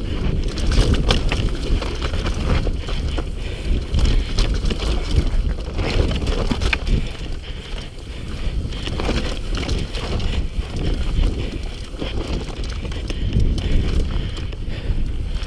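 Mountain bike descending a loose, rocky dirt trail: wind rumbling on the action camera's microphone, with many sharp clicks and knocks of tyres on stones and the bike rattling over the bumps.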